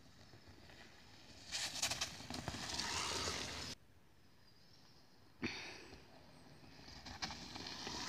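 A mountain bike passing close by twice on a dirt forest trail: tyres rushing over soil and leaves, with sharp rattling clicks from the bike. Each pass cuts off suddenly.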